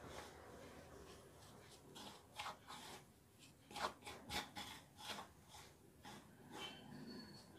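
Faint rubbing and scraping of a hand working through dry powdered bait mix (corn flour, milk powder, soya powder and coconut dust) in a stainless steel bowl, with a few short louder scrapes in the second half.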